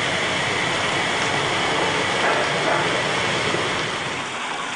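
Steady machinery noise in a pipe-jacking pit where a hydraulic press pushes concrete sewer pipe sections into a tunnel. About four seconds in it drops a little and gives way to the softer rush of flowing river water.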